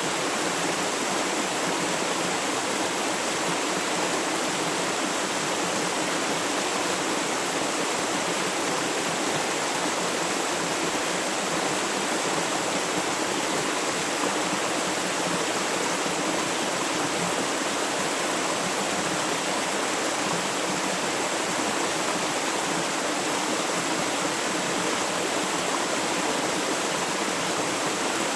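Flowing river water rushing steadily, an even hiss with no breaks or changes.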